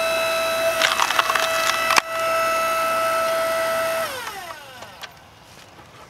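Small 5-ton electric hydraulic log splitter running with a steady motor whine while a log splits apart in a run of crackling snaps, ending in one sharp crack about two seconds in. About four seconds in the motor is switched off and its whine slides down in pitch and fades away.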